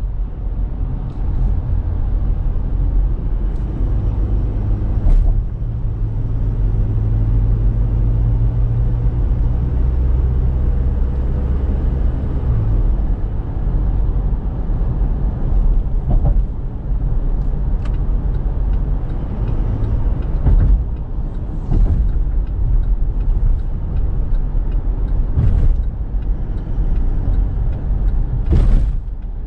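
Chevrolet Trailblazer's 2.8-litre four-cylinder turbo-diesel engine heard from inside the cabin while driving, a steady low drone that is strongest until about thirteen seconds in and then eases. A few brief thumps come through along the way.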